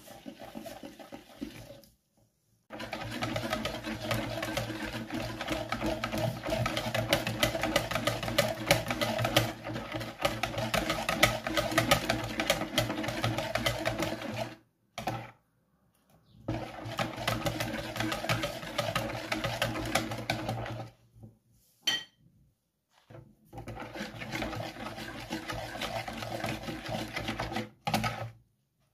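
Wire whisk beating pancake batter in a plastic bowl: fast, steady clattering strokes in three long stretches, broken by short pauses.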